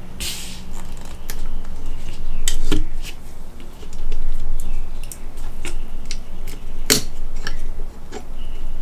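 Irregular sharp clicks and taps of a metal-frame mecha action figure's joints and armour parts being handled and posed, with a short rustle near the start.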